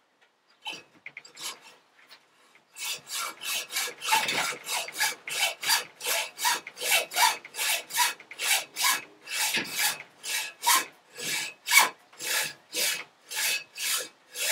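Hacksaw cutting a metal shovel pin held in a vise. A few light starting strokes lead into steady back-and-forth sawing strokes, about three a second.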